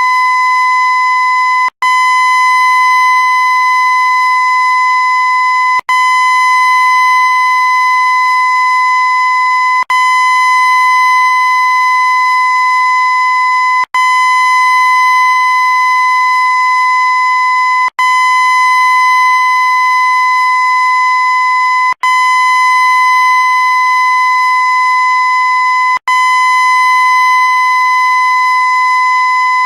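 A loud, steady, high-pitched tone with a fixed pitch and even overtones. It is looped, dropping out for a split second about every four seconds before starting again unchanged.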